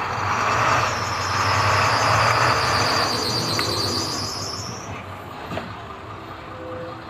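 Ten-wheeled Ashok Leyland tipper truck running, heard inside the cab: a steady low engine hum under loud mechanical noise, with a high-pitched squeal over it that dies away about five seconds in as the noise eases off.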